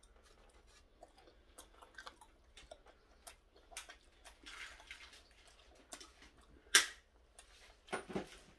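Chewing and small mouth sounds of someone eating a steamed dumpling, with scattered light clicks and rustles from handling a styrofoam takeout box. One sharp click stands out about two-thirds of the way through, followed by a few louder handling noises near the end.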